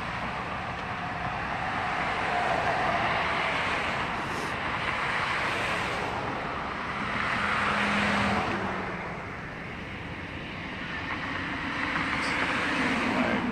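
Road traffic passing close by: about three cars go by one after another, their tyre and engine noise swelling and fading.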